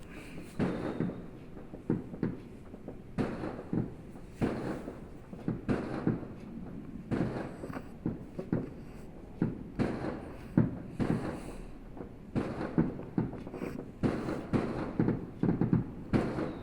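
New Year fireworks going off in a steady, irregular string of bangs and pops, roughly one or two a second.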